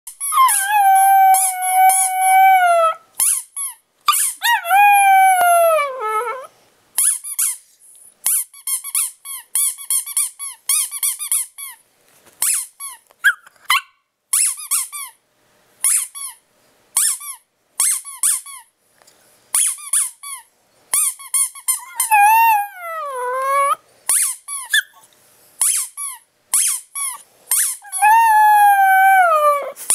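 Pomchon puppy howling at a squeaky toy as it is squeezed again and again. A long steady howl opens, and three more howls slide down in pitch, the last two near the end. Between the howls come rapid bursts of high squeaks from the toy.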